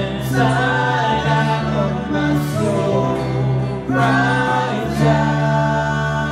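Worship music: a slow song with voices singing long, drawn-out notes over sustained chords.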